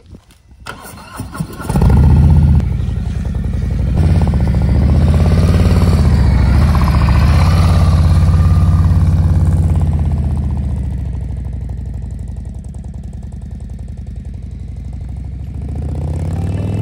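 V-twin motorcycle engine cranked on the electric starter and catching about two seconds in with a quick rev, then running loudly as the bike pulls away and fading as it rides off into the distance.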